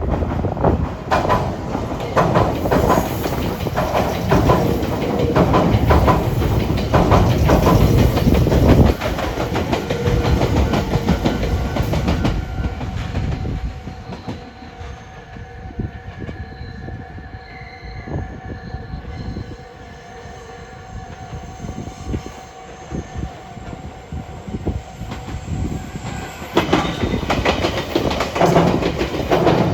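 Electric train wheels clattering over the rail joints of a junction's points: a dense run of rapid clacks that dies down about halfway through to a quieter stretch with a steady hum, then picks up loudly again near the end.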